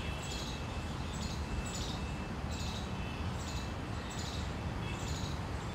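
Outdoor ambience: a short high chirp repeats about every three-quarters of a second, over a steady low rumble.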